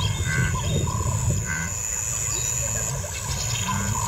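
Savanna wildlife ambience: a low rumble under a few short chirping calls, with a steady thin high-pitched hum.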